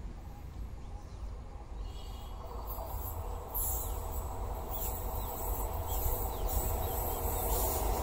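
Distant goods train hauled by two electric locomotives approaching, a low rumble that grows steadily louder, with insects chirping over it.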